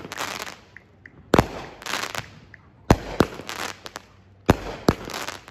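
A 49-shot consumer firework cake firing: three shots about a second and a half apart. Each is a low launch thump followed a fraction of a second later by the bang of the shell bursting, then a short crackling tail.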